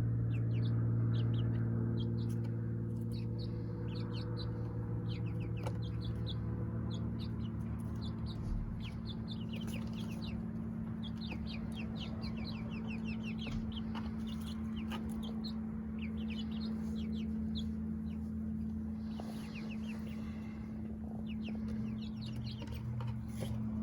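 Young chickens calling, a flock of many short, high, downward-sliding peeps in quick runs, over a steady low hum.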